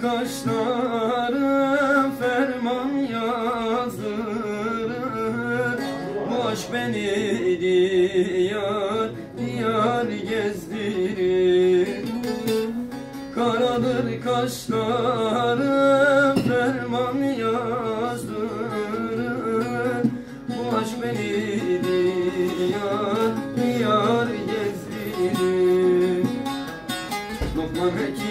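A man singing with his own bağlama (long-necked Turkish saz) accompaniment: plucked strings ringing steadily under a wavering, ornamented vocal line.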